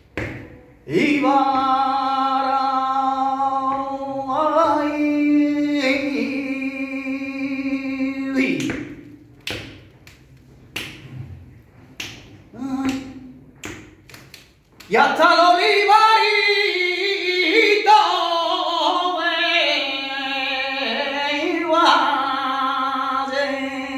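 Male flamenco cantaor singing a martinete unaccompanied: a long held note, then a pause with a few sharp taps, then a second phrase with the pitch wavering through ornamented turns.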